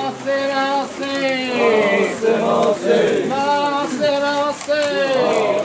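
A group of men's voices chanting together in a string of long drawn-out calls, several voices overlapping, some calls falling in pitch at the end: the float-pullers' chant.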